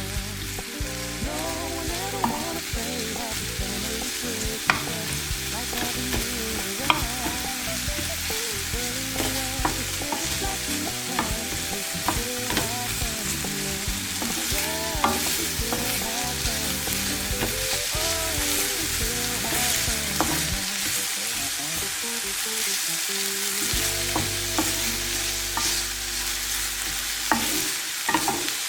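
Food sizzling in a hot pan, a steady frying hiss with scattered light clicks, over quiet instrumental background music.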